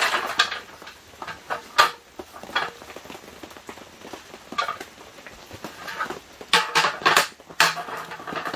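Folding camp table being set up: a slatted roll-up tabletop handled and laid onto its metal frame, giving irregular clattering clicks and knocks, with a cluster of sharp clacks near the end.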